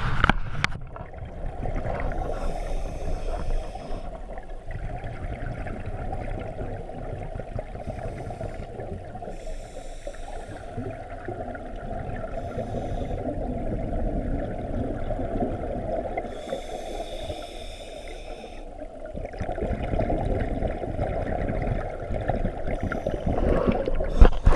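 Scuba diving heard through an underwater camera housing: a steady low bubbling rumble of exhaled regulator air, with a hissing regulator inhale every several seconds. A loud rush of bubbles past the housing at the very start, and the bubbling swells again near the end.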